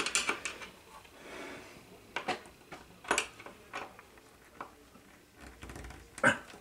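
Sporadic clicks and light knocks of curtain rod hardware being fitted and adjusted by hand at the top of a window frame, the sharpest click near the end.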